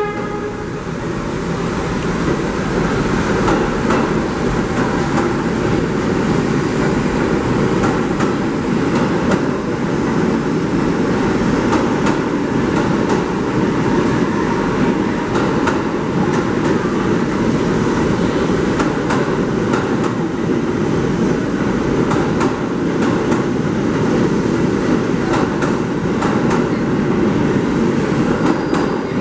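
New York City subway train rolling past the platform and out of the station: a steady rumble of wheels and running gear, with many sharp clicks as the wheels cross rail joints.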